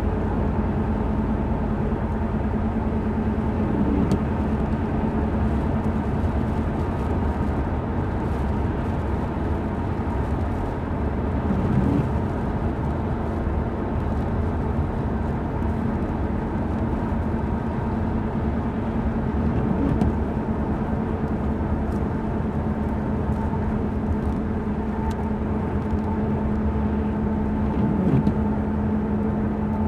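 Steady road noise inside the cab of a 2005 Ford Explorer Sport Trac at highway speed on a wet road: tyre hiss and rumble with a steady drone from the drivetrain. The windshield wiper sweeps across about every eight seconds.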